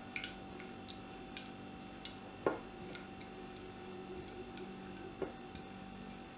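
Fingers mixing a thick curd and spice paste on a ceramic plate: scattered light ticks and taps against the plate, the sharpest about two and a half seconds in and another near five seconds, over a faint steady hum.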